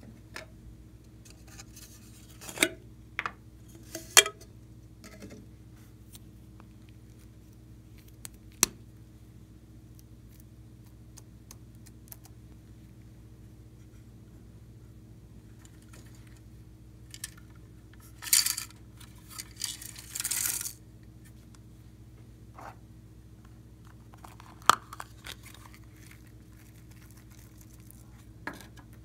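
Small plastic jars, lids and a trinket box clicking and tapping as they are handled, a few sharp taps spread apart. About two-thirds of the way through, two short rattling pours of sequins and glitter shapes scattered onto slime. A faint steady low hum lies under it all.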